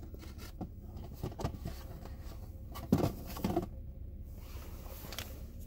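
Quiet vehicle interior with a steady low hum and a few faint rustles and clicks, broken about three seconds in by two short hesitant vocal sounds.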